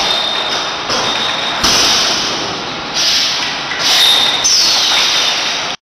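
Automatic six-head piston filling machine running as it fills glass jars with thick sauce. Steady mechanical clatter is broken about every second by sharp hisses of compressed air from its pneumatic cylinders moving the filling nozzles, with a thin high whine now and then.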